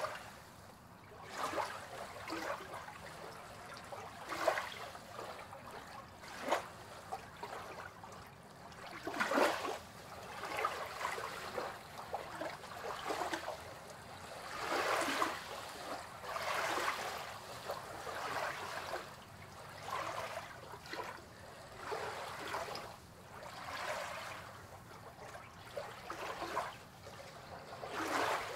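Water lapping against a pier, with soft, uneven splashes every second or two.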